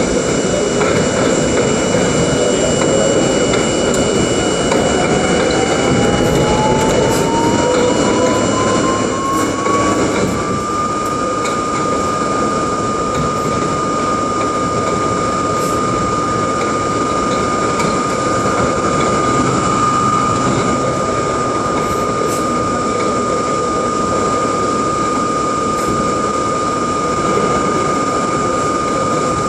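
R32 subway car under way: the traction motors whine in one clear note that climbs steadily for about ten seconds as the train picks up speed, then holds level at cruising speed, over a loud, steady rumble of wheels on rail.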